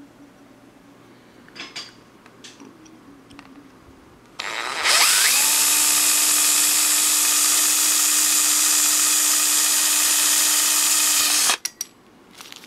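Cordless drill spinning up with a rising whine, then running steadily for about seven seconds as it bores a hole through a metal bottle cap, and stopping abruptly. A few light handling clicks come before it.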